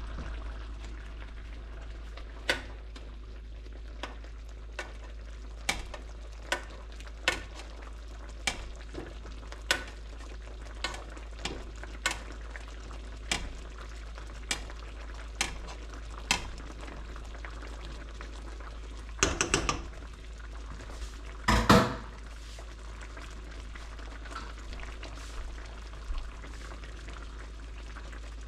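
A pot of red snapper and bammy cooking on the stove, with a steady hiss and sharp pops every second or so. About two-thirds of the way through come two brief, louder clatters.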